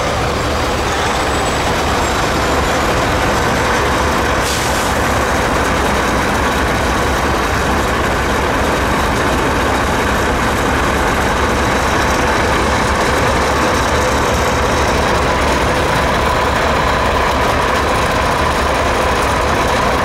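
Semi-truck diesel engine idling, a steady drone, with a brief hiss about four and a half seconds in.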